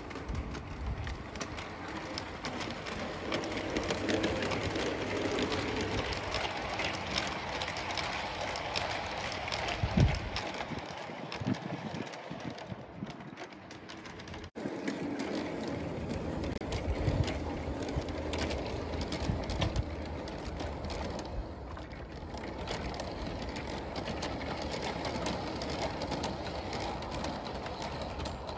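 G scale model trains running on garden-railway track: a steady rumble and whir of wheels and motors, dotted with frequent light clicks. A single louder thump comes about ten seconds in.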